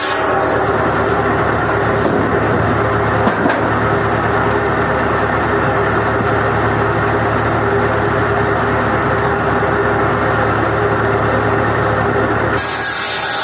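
Massey Ferguson 35 tractor's four-cylinder engine running at a steady speed, with no wood being cut.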